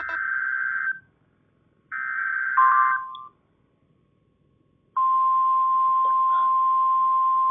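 Emergency Alert System SAME header: two short bursts of digital data screech about a second long, with quiet gaps between. About five seconds in, the steady 1050 Hz NOAA Weather Radio warning alarm tone starts.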